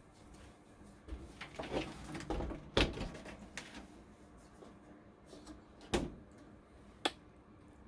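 A desktop tower's metal case being opened by hand: a run of rubbing and knocking, then sharp clicks, the loudest about three seconds in and two more near six and seven seconds.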